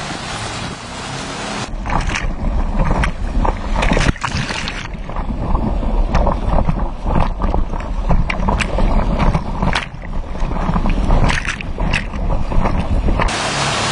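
Water rushing and splashing around a towed bodyboard, with heavy wind rumble and many irregular splash hits on a camera mounted on the board. At the very start and near the end the sound switches to a motorboat's steady engine drone over its churning wake.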